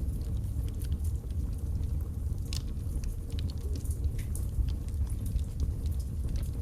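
Wood logs burning in a fireplace: a steady low rumble with scattered sharp crackles and pops, one louder pop about two and a half seconds in.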